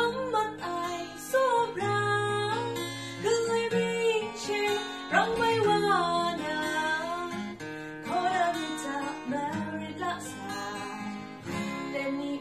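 A woman singing a song, accompanied by a man playing an acoustic guitar.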